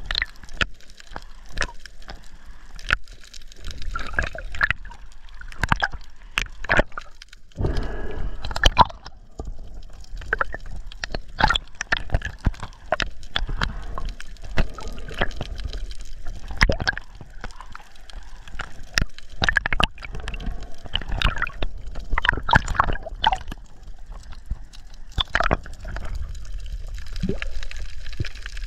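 Underwater sound picked up by a spearfisher's camera: water gurgling and sloshing around the housing over a low rumble, with many scattered sharp clicks. A louder wash of water comes about eight seconds in.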